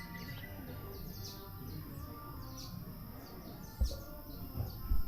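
Birds calling over steady outdoor background noise: repeated short, high chirps that slide downward in pitch, about one or two a second. A few low bumps come near the end.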